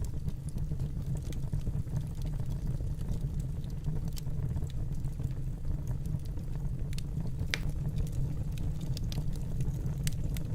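Wood fire burning in a fireplace: a steady low rumble of flames with scattered crackles and pops, one sharper pop about two-thirds of the way in.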